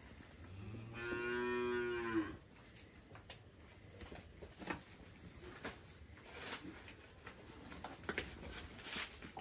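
A local Sikkim cow moos once, about a second in: a single steady call lasting just over a second. Faint scattered knocks and rustles follow.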